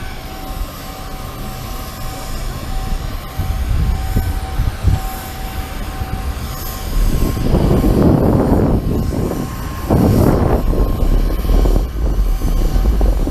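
Cabin noise of an Avro RJ85 airliner on the ground with its four turbofan engines running: a steady low rumble with faint thin whine tones, and louder rough rumbling twice, about seven and a half and ten seconds in.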